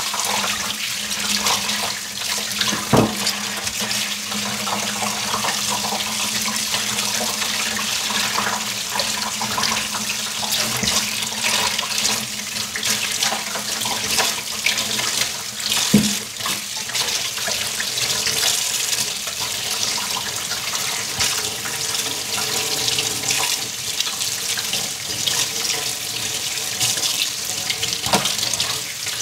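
Kitchen tap running steadily into a stainless steel sink, splashing over raw chicken pieces being rinsed by hand. Two sharp knocks stand out, about three seconds in and again about halfway through.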